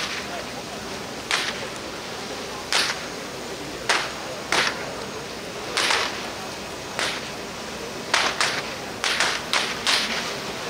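A big fire of a burning wooden royal boat and piled joss paper: a steady rush of flames with about a dozen sharp cracks and pops at irregular intervals, several coming in quick succession near the end.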